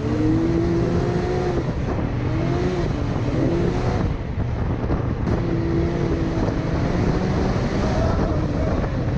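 A Can-Am side-by-side's engine running under load across sand dunes, its pitch climbing and falling back several times as the throttle is worked.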